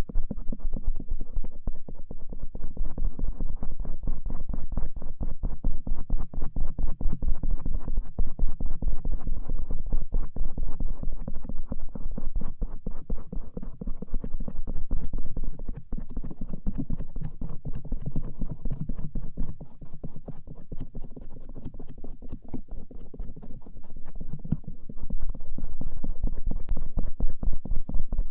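A bamboo ear pick scratching and rubbing over the outer ear in quick, continuous strokes, mostly dull and low.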